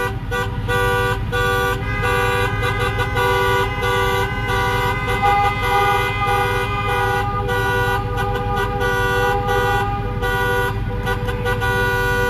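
Several car horns honking together in long, overlapping blasts, held almost without a break, over the low rumble of slow-moving cars.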